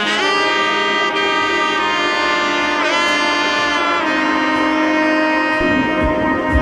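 Background music of long held notes that change every second or so, with one note sliding about three seconds in and a few low drum hits near the end.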